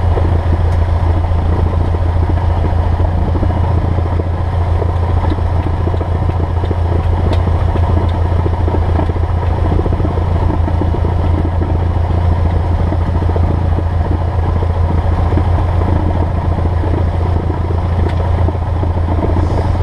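Cessna 172S's four-cylinder Lycoming IO-360 engine and propeller running steadily at idle, a constant low drone with no change in pitch, during the before-takeoff checks.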